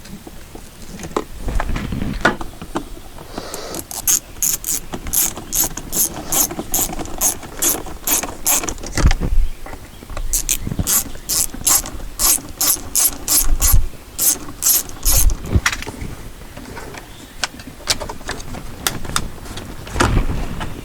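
Hand ratchet clicking steadily, about three clicks a second, in two runs of several seconds with a short pause between. A few dull thumps come before, between and after the runs.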